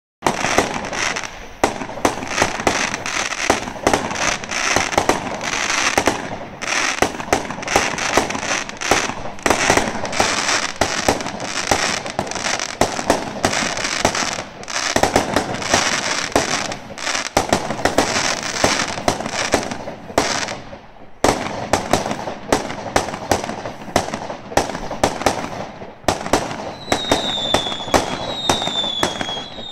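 Fireworks going off in a rapid, dense run of bangs and crackles from aerial bursts, with a brief lull about twenty seconds in. Near the end, short falling whistles come about once a second among the bangs.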